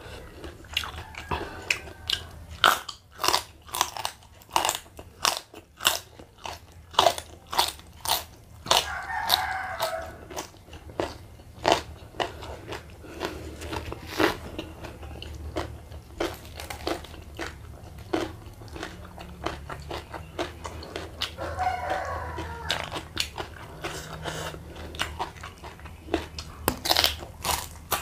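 Close-up biting and crunching of raw papaya stalk eaten as lalapan with sambal: crisp crunches come several a second for the first half, then thin out to sparser crunches and chewing.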